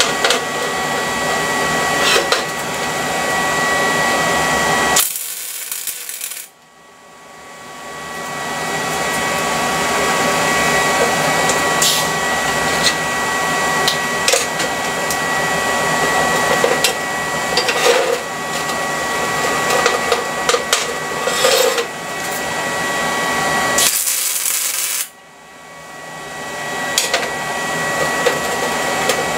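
Welding arc crackling steadily, with a thin high whine and scattered sharp pops. It cuts out twice, each time for about a second, between welds.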